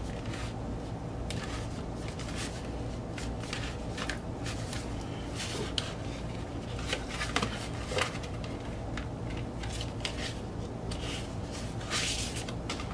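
Paper and card packaging being handled: a run of small rustles, scrapes and crackles, with a few sharper crackles around the middle and near the end.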